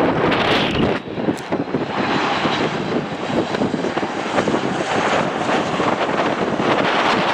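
Jet airliner engines: a deep, noisy rumble that cuts off abruptly about a second in, followed by a steadier, thinner jet noise with more hiss from an airliner on approach with its landing gear down.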